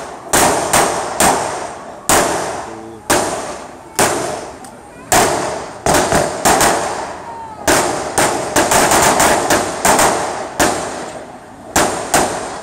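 Gunfire: irregular single shots, then a rapid run of about a dozen shots from about eight to ten seconds in, each crack followed by a long echo. A bystander takes the weapon for an AK.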